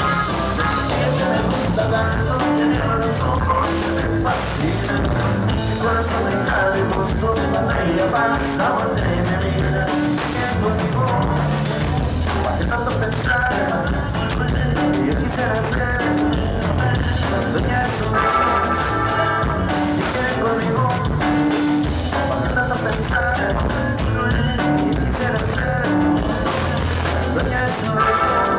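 A live norteño band playing: button accordion over guitar and drum kit, loud and steady through the stage sound system.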